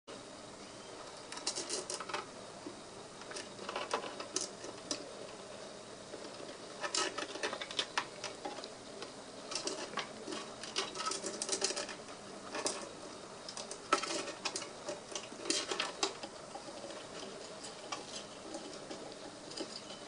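A cockatiel climbing the bark-covered wall of a wooden birdhouse, gripping the wood with quick scratchy clicks. The clicks come in short spells with pauses of a second or two between them.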